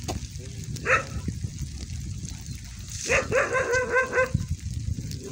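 A dog barking: one bark about a second in, then a quick run of about eight barks around three seconds in, over a steady low rumble.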